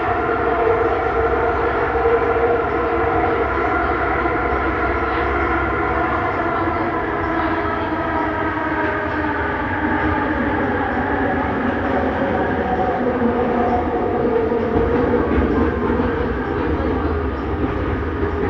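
Bombardier Innovia Metro 300 train running at speed, heard from inside the car: a steady whine of several tones that drift slightly in pitch, over a continuous rumble.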